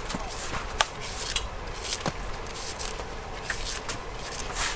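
Long knife blade shaving the fibrous husk off a young coconut: repeated short scraping cuts, with an occasional sharp click as the blade strikes.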